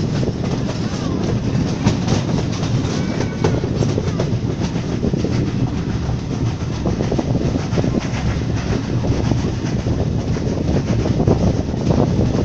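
Heritage passenger train hauled by a Ty42 steam locomotive running at speed: a steady rumble of the carriage wheels with repeated clicks over the rail joints, heard out of an open carriage window.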